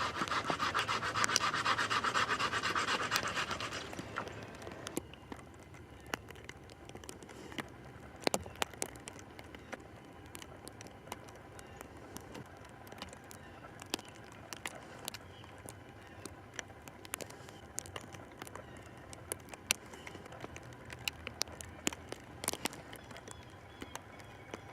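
Sticks and rope being handled while a wooden roof frame is built. A loud rough scraping fills the first four seconds, then scattered light clicks and knocks follow.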